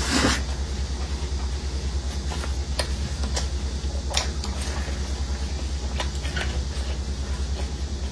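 A steady low hum that pulses rapidly, with a few sharp small clicks and a short rustle at the start, typical of someone eating.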